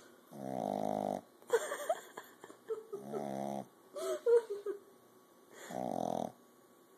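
Sleeping puppy snoring: three pitched snores, each under a second long and about two and a half seconds apart. Between the snores come short sounds that waver in pitch, the loudest of them about halfway through.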